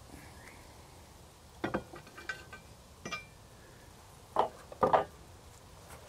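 Cast iron Dutch oven lid and steel lid lifter clinking, several light metallic clinks with brief ringing, then two heavier clanks near the end as the lid is set down on its metal stand.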